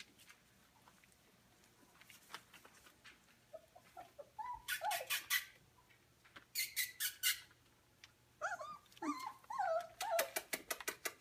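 Four-week-old Goldendoodle puppies yipping and whimpering as they play, in short high calls that bend in pitch, coming in two spells about four and eight seconds in. Between the calls come short runs of rapid sharp clicks.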